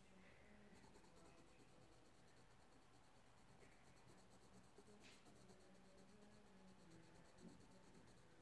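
Faint, rapid back-and-forth scratching of a pen on paper as an area of a drawing is coloured in, starting about a second in.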